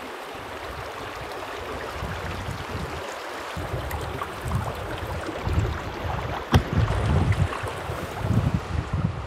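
Small stream's water rushing and burbling steadily over rocks, with low gusts of wind buffeting the microphone through the second half. A single sharp click sounds about two-thirds of the way through.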